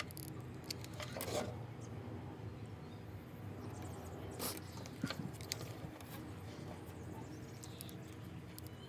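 Faint scattered clicks and taps of wooden jumbo craft sticks and a hot glue gun being handled while the sticks are glued together.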